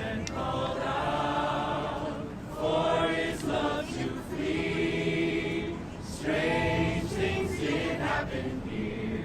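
Many voices singing together like a choir, in long held phrases with short breaks between them.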